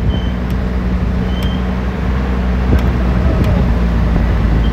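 SUV engine running steadily with tyre and road noise on a rough unpaved mountain track, heard from outside the moving vehicle's window, with a few light knocks and short high chirps over it.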